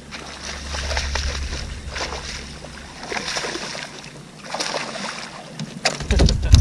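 A hooked bass splashing and thrashing at the water's surface in uneven bursts as it is played to the boat. About six seconds in, sudden louder knocks and thumps as the fish is swung up onto the boat.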